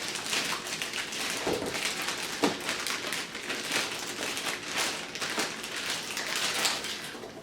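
Packaging crinkling and rustling steadily as the robot vacuum is unwrapped from its packing.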